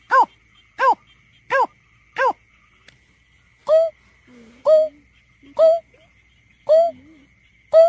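Greater painted-snipe giving its hooting call: a series of short, hollow hoots. First come four quicker, higher notes, then after a short pause slower, lower hoots about one a second.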